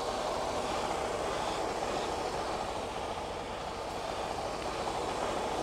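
Steady idling rumble of a semi truck's diesel engine, with no sharp knocks or changes.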